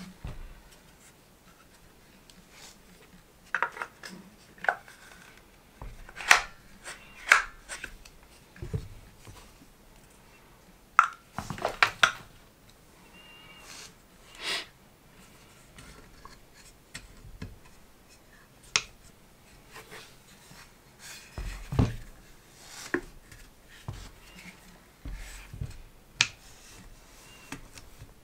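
Irregular clicks, knocks and rubbing from handling a folding laptop stand as its arms are swung open.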